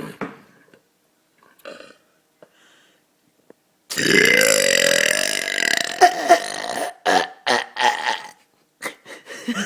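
A long, loud belch starting about four seconds in and lasting over two seconds, its pitch wavering, followed by several shorter belched sounds.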